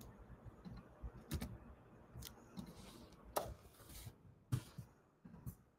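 A few faint computer keyboard keystrokes and mouse clicks, scattered irregularly.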